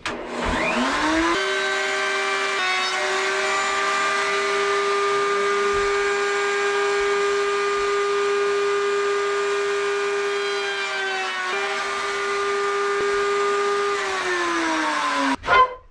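Router in a benchtop router table, fitted with a quarter-round bit, spinning up with a rising whine. It runs steadily while a strip of wood is fed past the bit to round its edge, then winds down near the end.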